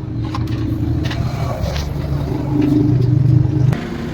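A motor vehicle engine running with a steady low hum. It grows louder past the middle, then drops off sharply shortly before the end.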